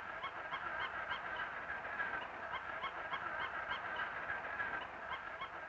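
A duckling peeping in a rapid, even series, about three calls a second.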